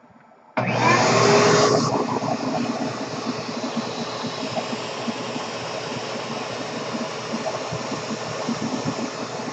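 Vacuum cleaner switched on about half a second in, loudest for the first second or so, then running steadily with a hissing rush and a motor hum. Its suction is held at the outlet straw of a deflating balloon-powered toy car.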